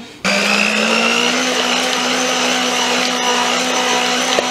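Electric hand mixer switched on just after the start and running steadily with a whisk attachment, beating softened cream cheese into whipped cream in a stainless steel bowl. A loud motor whine whose pitch creeps up slightly.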